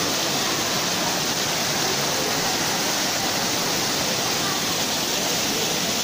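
Waterfall pouring down basalt columns: a steady, even rush of falling water.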